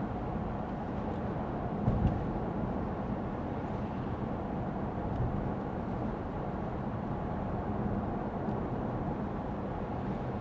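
Inside the cabin of a Lexus ES 350 F Sport sedan on the move: a steady hum of road and engine noise, with a brief thump about two seconds in.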